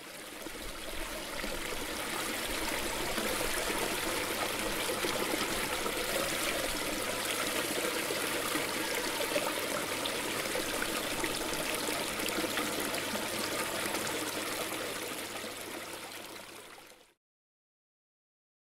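Steady running water, a dense splashing rush that fades in, holds and fades out near the end.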